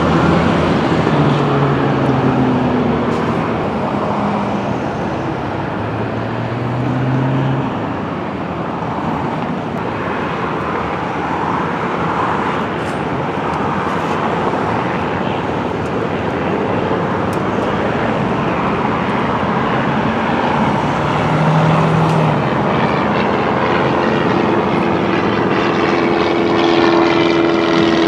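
Aircraft engines running, a loud, steady rush with brief low drones; a steadier droning tone comes in near the end.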